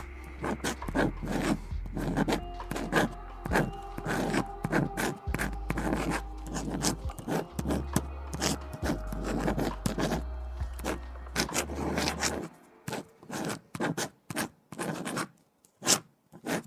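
Writing on paper: quick scratching pen strokes in a steady run, over lo-fi background music whose bass line stops about three quarters of the way through, leaving the strokes alone.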